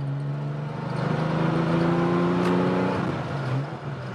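Porsche 911 SC's air-cooled flat-six engine pulling under acceleration, revs rising steadily for about two seconds, then dropping off shortly before the end.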